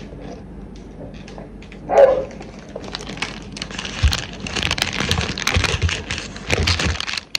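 Crinkly crackling rustle of a cellophane flower wrapper, with handling noise and dull knocks as the phone is picked up and carried against clothing. A brief loud sound comes about two seconds in.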